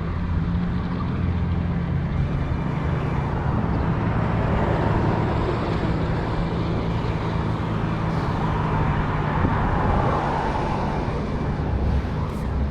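City street traffic: a steady low engine drone under continuous road noise.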